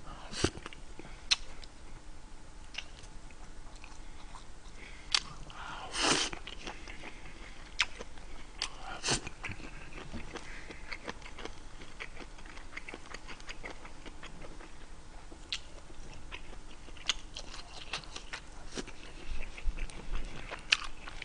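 A man chewing and biting food close to the microphone, with scattered short clicks through it and a slightly louder mouth noise about six seconds in.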